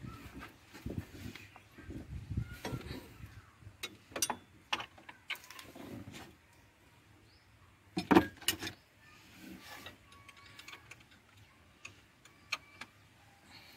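Hands and tools working on parts in a car engine bay: scattered clicks, clinks and knocks, with the loudest cluster about eight seconds in.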